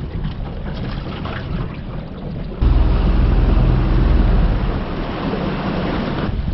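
Boat under way trolling: the boat's motor running under wind and water noise. It gets suddenly louder, with a heavier low rumble, about two and a half seconds in.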